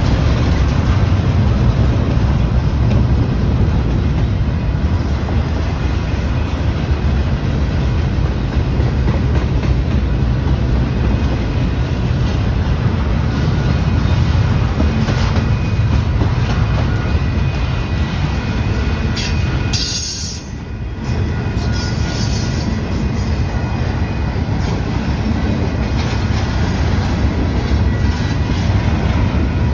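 Double-stack intermodal freight cars rolling past at close range: a loud, steady rumble and rattle of steel wheels on the rails, with a brief dip in level about twenty seconds in.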